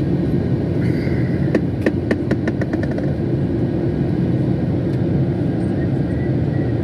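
Airliner engine and cabin noise heard from inside the cabin: a steady low drone as the plane descends for landing. A quick run of light clicks comes about two seconds in.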